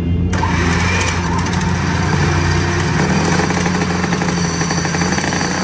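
1972 MZ 250 RE factory racer's two-stroke engine running on the stand to warm up. It holds a steady idle, with slight rises and falls in pitch as the throttle is worked.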